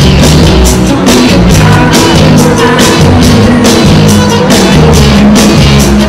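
Loud live rock-pop music from a concert's stage sound system, with singing over a steady beat of about two a second.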